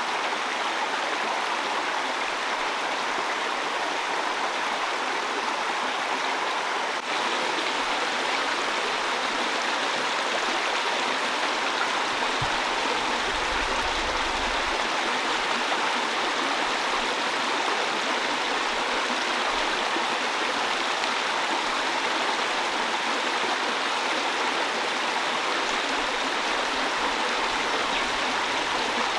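Steady rain falling, an even, unbroken rushing hiss of water.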